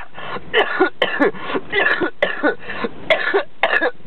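A man's coughing fit: a rapid run of a dozen or so coughs, about three a second, each with a sharp start.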